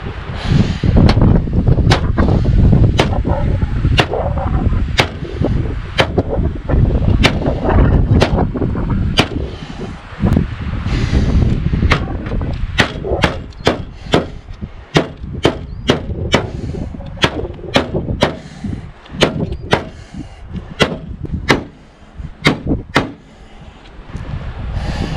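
A Cold Steel SR1 tanto-point knife stabbing again and again into a car's sheet-metal hood, each stab a sharp metallic hit. The hits come about one or two a second, faster through the middle.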